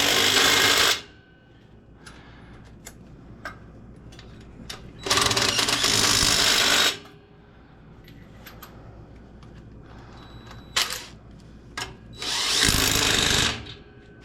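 Compressed-air tire-shop tool running in three bursts of one to two seconds each, with short pauses between.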